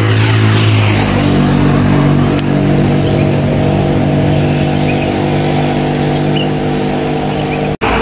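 A heavy road vehicle passing close by, its engine running steadily with tyre and road noise. The engine note steps up about a second in. The sound drops out briefly just before the end.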